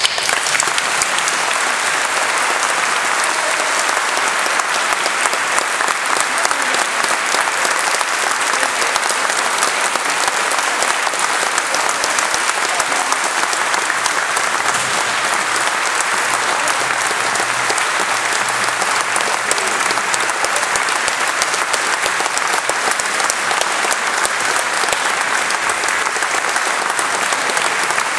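Audience applauding steadily in a large church after a wind band's final piece.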